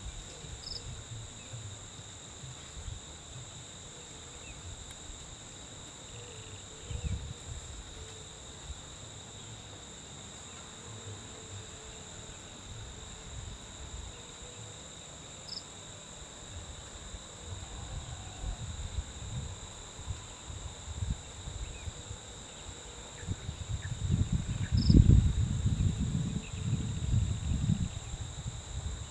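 Steady, even drone of insects in two high tones, with irregular low rumbling on the microphone that is loudest about 25 seconds in.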